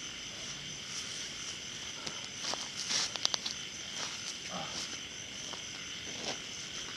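Night chorus of insects and frogs: a steady high-pitched trill, with a quick cluster of sharp clicks about three seconds in.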